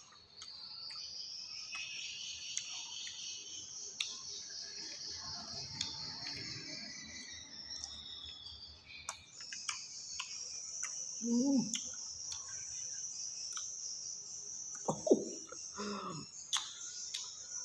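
Insects chirring in a steady high-pitched drone, with scattered small clicks. A few short voice sounds come about a third of the way in and again near the end.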